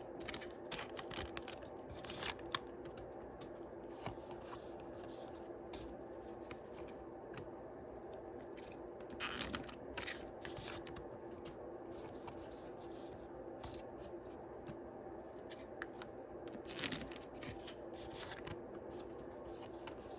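Yu-Gi-Oh! foil booster packs being opened and their cards handled: short crinkles, snips and clicks, with two louder bursts of crinkling about nine and seventeen seconds in.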